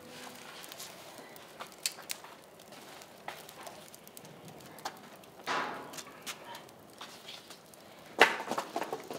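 Wood fire burning in a wood-fired oven, crackling with scattered irregular pops, with a brief rushing swell about halfway through. A single sharp knock sounds near the end.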